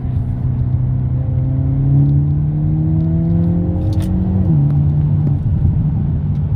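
2022 Hyundai Elantra N's turbocharged 2.0-litre four-cylinder pulling hard in third gear under full boost, its note rising steadily. About four and a half seconds in the pitch drops sharply as it shifts up to fourth, then holds lower and steady.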